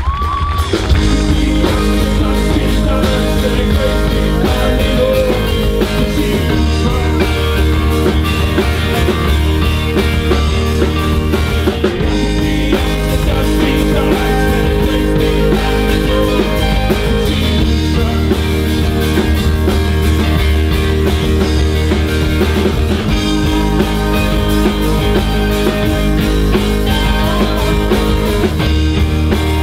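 Rock band playing live: electric guitars, bass guitar and drums.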